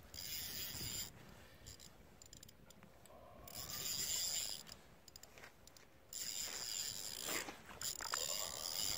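Fly reel's click-pawl ratchet whirring as line is wound or pulled off, in several spells with short pauses between.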